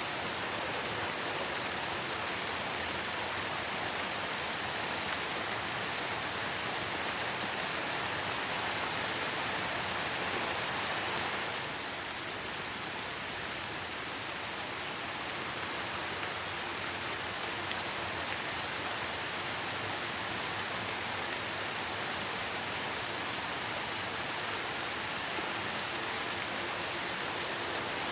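Steady rain falling as a dense, even hiss. It gets slightly quieter about eleven seconds in.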